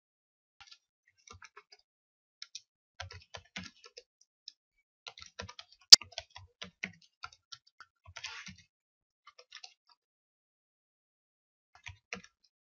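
Computer keyboard typing in irregular bursts of short key clicks, with one sharper, louder click about six seconds in.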